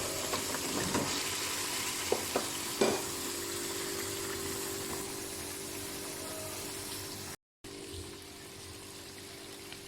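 Rohu fish pieces and pointed gourd sizzling in oil and spice paste in a kadai, fried in the masala, with a few sharp knocks of a spatula against the pan in the first three seconds. The sound cuts out for a moment about seven and a half seconds in, then the sizzling goes on a little quieter.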